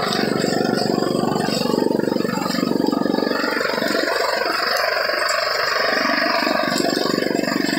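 Tractor-powered chaff cutter running under load as dry straw is fed in: the tractor engine runs steadily while the cutter's spinning blades chop the stalks and blow the chaff out, a dense, even clatter.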